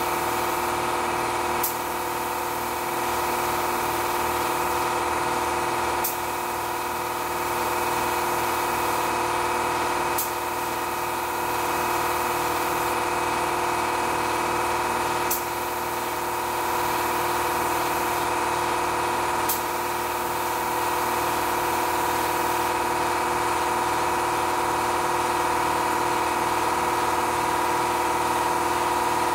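29-gallon air compressor running with a steady hum while a SprayIt LVLP spray gun sprays paint, its air hissing in passes. Sharp clicks come about every four to five seconds.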